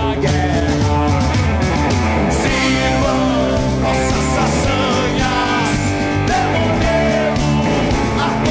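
Background music with guitar and a singing voice, playing steadily.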